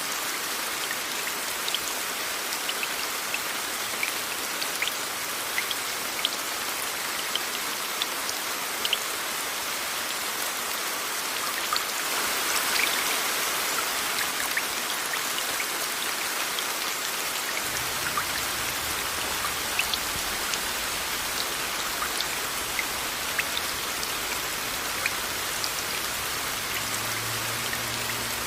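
Steady rain with many individual drops ticking, blended with a white-noise hiss. The rain swells briefly about halfway through, and a low rumble joins about two-thirds of the way in.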